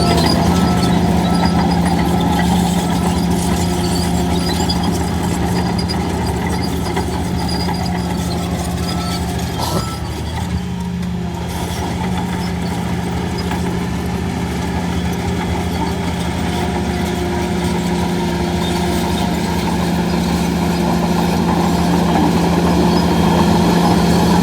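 Heavy earthmoving machine's diesel engine running steadily, with a short dip in level about ten seconds in.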